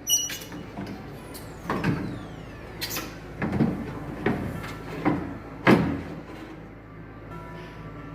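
Door window glass being slid out of a 1973–87 GM squarebody truck door: the glass scrapes and knocks against the steel door shell in a series of uneven strokes, the loudest about six seconds in.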